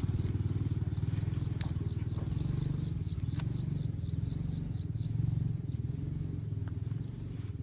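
A small engine running steadily nearby, a fast, even low putter. Faint high chirps sound above it.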